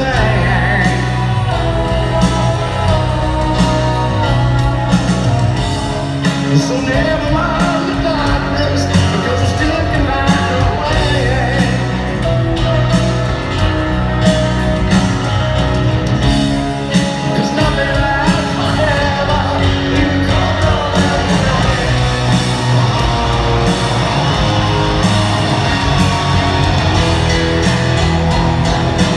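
Live rock band playing a power ballad in an arena: male lead vocals over grand piano, bass, drums and guitars, heard from the audience in a large, reverberant hall.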